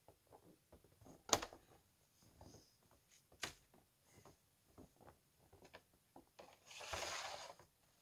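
Faint knocks and clicks of someone moving about on a wooden cabin deck and doorway, with a sharper knock about a second in and another about three and a half seconds in, then a brushing scrape lasting under a second near the end.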